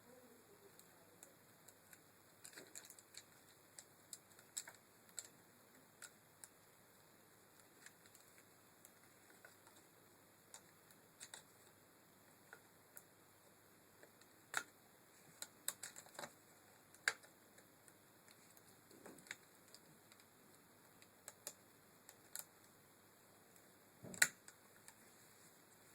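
Irregular light clicks and taps of small parts being handled during a car window regulator repair, with a louder knock a couple of seconds before the end.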